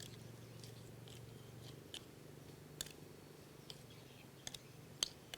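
Raw chicken pieces being mixed by hand into a curry-powder and fish-sauce marinade: a few soft, wet squishes and small clicks spread irregularly over a faint low hum.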